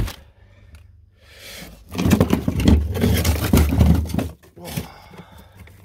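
Plastic tubs and trays being shifted and scraped around in a freezer, a rough scraping and knocking about two and a half seconds long, with a shorter scrape near the end.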